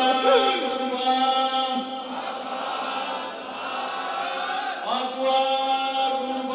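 Male voices chanting a Shia mourning lament (noha) for Imam Hussein in Azerbaijani Turkish, in long held notes. The chant softens in the middle and a new phrase starts about five seconds in.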